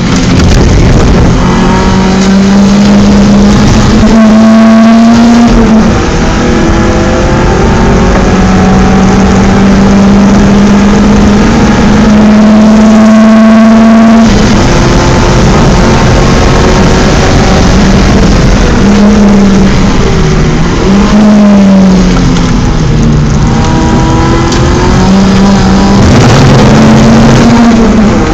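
BMW 318is four-cylinder engine running hard at high revs on track, heard continuously from inside the car. The engine note holds steady for long stretches, changes abruptly about halfway through, then dips and climbs again several times near the end as the driver brakes, shifts and accelerates.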